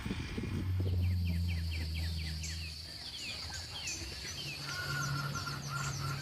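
Rural farmyard ambience: small birds chirping in quick, repeated down-sweeping runs over a steady high insect buzz, with a low drawn-out hum from a large animal or distant machine underneath.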